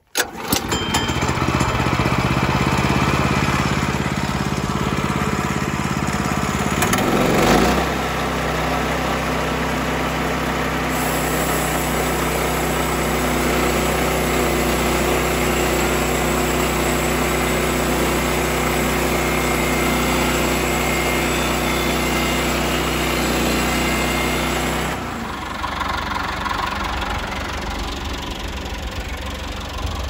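Kohler gasoline engine of a Woodland Mills HM122 band sawmill starting abruptly and running steadily; about seven seconds in its pitch shifts and it runs under load as the band blade cuts a board from a pine cant. The blade is getting dull. Near the end the steady engine tone gives way to a rougher, lower running sound.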